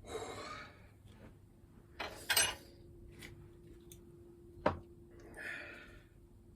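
Metal lathe parts clinking as they are handled on a workbench: a sharp metallic knock about two seconds in leaves a faint ringing tone that hangs on for several seconds, followed by two lighter clicks.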